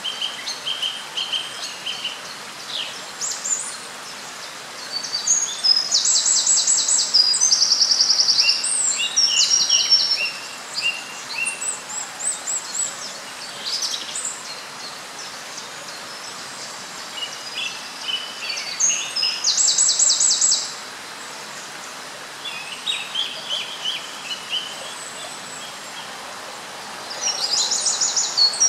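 Small songbirds singing: bright, high trills and chirps that come in bursts every few seconds, over a steady background hiss.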